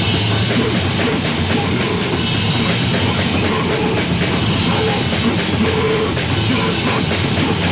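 Heavy metal band playing at full tilt: distorted guitars, bass and fast, steady drumming, with a raw demo-tape sound.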